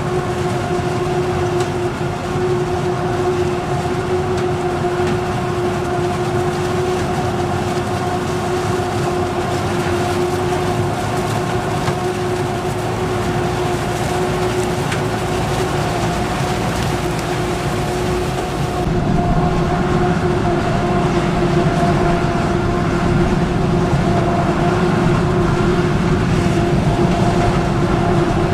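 Self-propelled forage harvester running while chopping maize and blowing it into a trailer: a steady machine drone with a constant hum, over a rumble. About two-thirds through, the drone grows a little louder and fuller.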